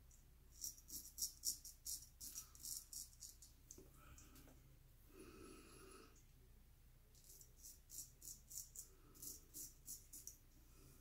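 Gold Monkey straight razor scraping through lathered beard stubble in short, crisp strokes, about three a second, during the second pass of a wet shave. The strokes come in two runs of a few seconds with a pause between.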